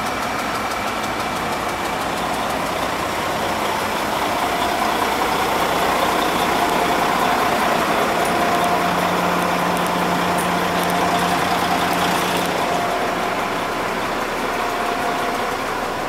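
Caterpillar 972H wheel loader's Cat C11 diesel engine idling steadily.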